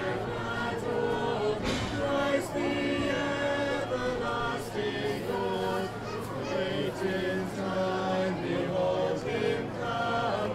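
A choir singing, with held notes moving from one pitch to the next every second or so.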